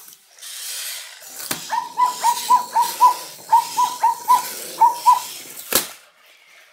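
Spin Master Zoomer robot dog doing its dance trick: a motor whir as it moves on its wheels, then a quick string of about a dozen short electronic beeps, each dipping in pitch, and a sharp click near the end.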